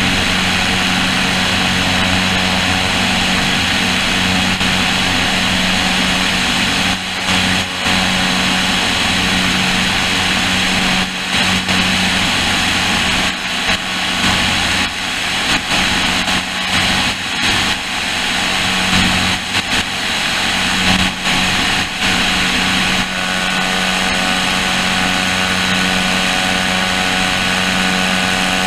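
Cessna O-2A's twin piston engines, front and rear, running hard as the aircraft lifts off and climbs out, heard under heavy wind rush at a wing-mounted camera. A steady low drone, with several brief dips and flutters in the level through the middle stretch.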